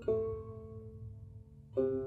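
Background music: a plucked-string instrumental, with a chord struck at the start and left to ring, and a second chord struck near the end.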